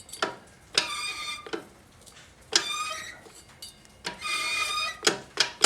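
Steel parts of a 4L60E transmission's front planetary gearset clinking together as they are fitted and handled. There are three metallic rings about a second and a half apart, each fading over about half a second, with light clicks in between.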